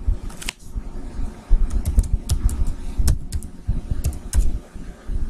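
Typing on a laptop keyboard: irregular key clicks, with dull knocks carrying through the laptop body.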